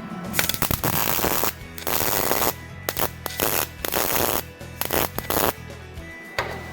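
Electric arc welder crackling in several bursts of a second or so with short gaps, as a nut is welded onto a broken exhaust manifold bolt so the bolt can be turned out.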